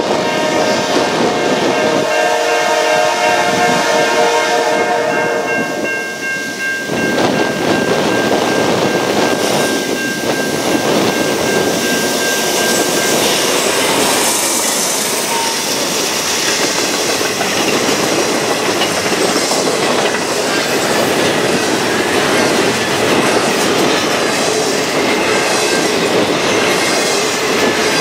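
A freight train's multi-tone air horn blows for about the first seven seconds as the train nears. The lead diesel locomotive, a GE C40-8, then passes close by, followed by the steady clickety-clack of double-stack container cars rolling over the rails.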